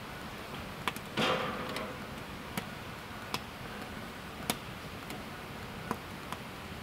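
Wood fire crackling in a stainless-steel fire pit, with scattered sharp pops. About a second in, a small metal kettle is set down on the fire's steel grill grate with a brief clank and scrape, the loudest sound here.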